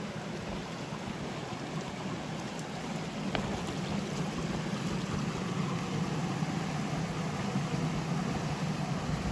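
Rocky mountain stream running, a steady rush of water that grows louder about three seconds in, with a single sharp click just after.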